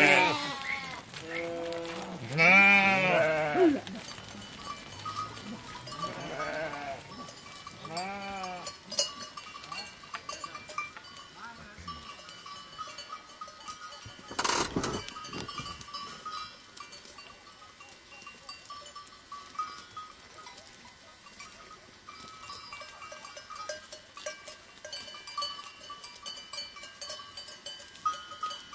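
Sheep and goats bleating, several calls in the first nine seconds with the loudest about three seconds in, then the tinkling of livestock bells that carries on to the end. A short, sharp noise cuts across everything about halfway through.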